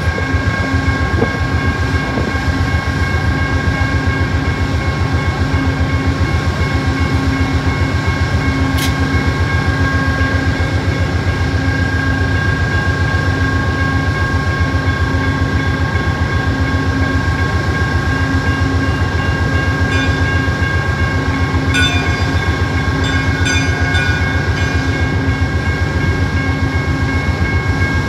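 Amtrak GE P42DC Genesis diesel locomotives idling while the train stands in the station: a steady low diesel throb with a steady high-pitched whine over it. A single sharp click comes about a third of the way in, and a few faint chirps near the end.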